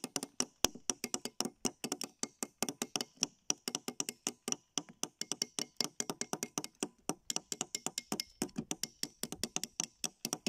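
Two small hammers tapping on chisels driven into a crumbly plaster fossil-dig block: rapid, irregular sharp knocks, several a second, as two people chip away at once.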